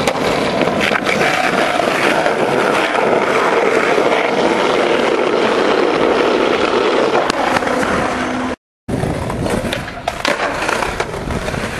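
Skateboard wheels rolling steadily over pavement, then after a brief cut to silence about two-thirds in, a few sharp clacks of the board during a trick.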